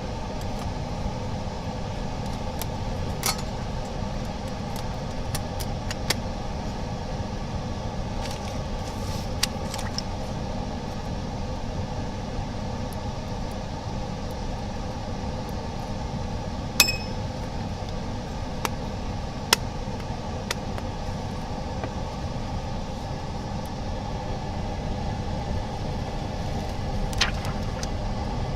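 Steady mechanical hum of running workshop equipment, with a few sharp small clicks and taps of parts being handled, the loudest about halfway through.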